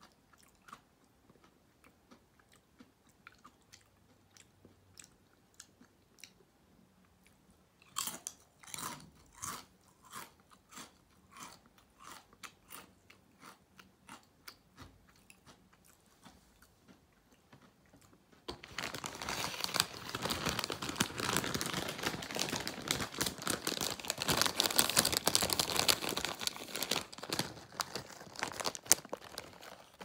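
Potato chips crunched and chewed close to the microphone: soft chewing at first, then crisper crunches a little under two a second. About two-thirds of the way in, a louder dense crackling takes over for about ten seconds.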